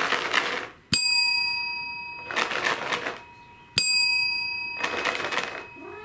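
A plastic tub of cat treats shaken in three short rattles, alternating with two strikes of a desk service bell, each ring fading slowly. The bell is rung together with the treat rattle as a cue for food.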